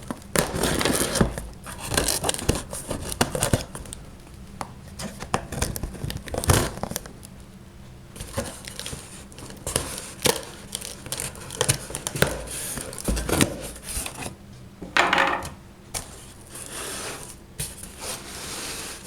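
A cardboard shipping box being cut and torn open: tape tearing, cardboard scraping and crinkling packing in irregular bursts, with a louder tear about fifteen seconds in.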